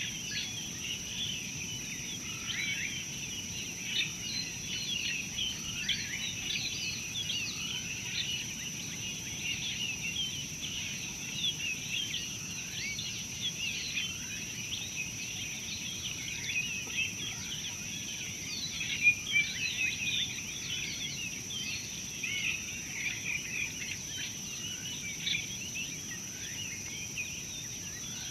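Dawn-chorus-like mix of many small birds chirping and whistling continuously, the calls overlapping with many short downward-sliding notes, over a constant high-pitched drone.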